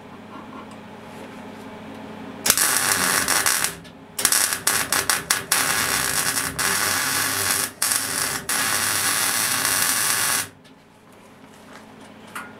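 MIG welding arc crackling as a bead is laid on a rectangular steel tube: a short run of about a second starting a couple of seconds in, then after a brief pause a longer run of about six seconds with a few momentary breaks, cutting off suddenly.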